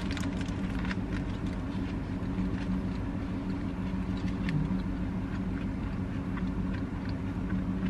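A mouthful of cheeseburger being chewed, with faint scattered clicks, over a steady low hum inside a car's cabin.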